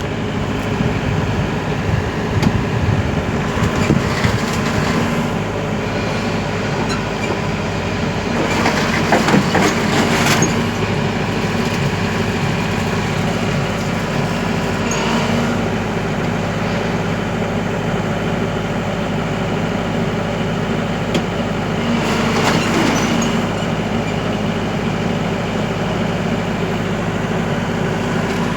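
Excavator's diesel engine running steadily, with bouts of metallic creaking and clanking about nine seconds in and again past twenty seconds.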